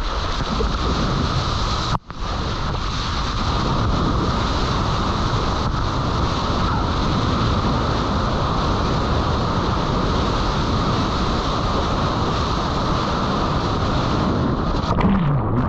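Whitewater and wind rushing over a close action-camera microphone as a surfboard rides through a breaking wave: a steady, loud wash of noise that cuts out for a split second about two seconds in.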